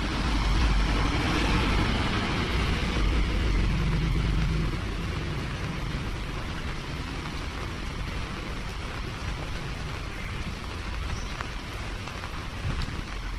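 Steady rain falling on a paved alley, a constant hiss. Over the first four seconds or so a low rumble sits under it, then fades out, leaving the rain alone.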